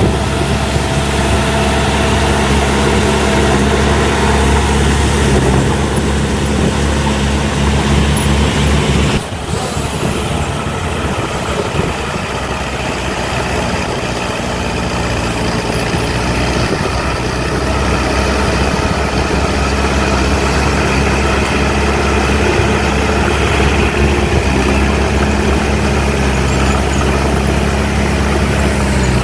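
Heavy diesel engines of earthmoving machinery running steadily, with a sudden break and change in the engine sound about nine seconds in.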